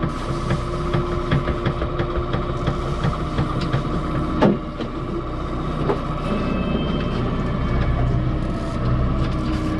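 Boat's outboard motor running steadily at low speed, a constant drone with a thin whine, with scattered clicks and knocks on the boat and one louder knock about halfway through.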